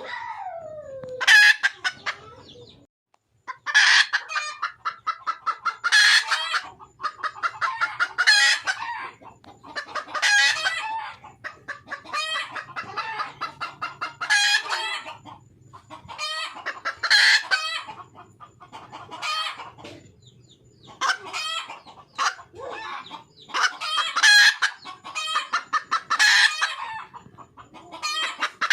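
Wild junglefowl hen cackling: loud bursts of rapid clucks, repeated about every two seconds, after a single falling call at the start. It is the hen's call to attract a male.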